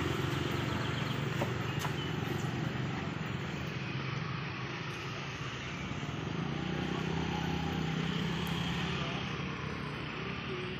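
Steady low engine hum of motor traffic, swelling as a small motor scooter passes close by around the middle.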